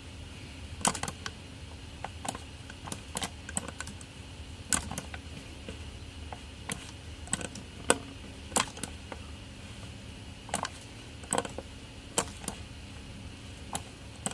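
Irregular clicking of a computer keyboard and mouse, single clicks and short clusters with pauses between them, over a faint steady hum.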